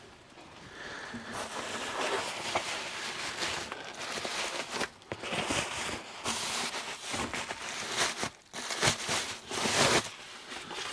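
Hand-work noises of a fitting being taken apart: irregular rustling, scraping and small clicks and knocks.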